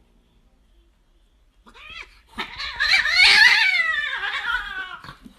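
A cat yowling: a loud, wavering cry that rises and falls in pitch. It starts about two seconds in and fades out near the end.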